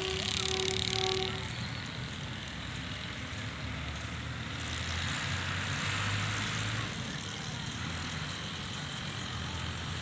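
Chord horn of an approaching RGE-24 diesel locomotive sounding a long steady blast that stops about a second and a half in, followed by the distant low rumble of the locomotive. A rushing noise swells and fades around the middle.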